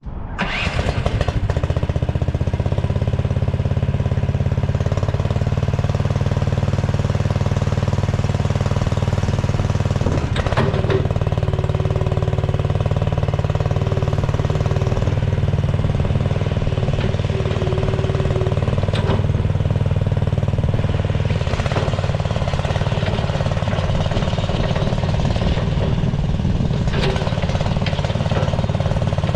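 AGT SDA-140T tracked mini skid steer's engine running steadily, with a few brief knocks or hisses from the machine at intervals.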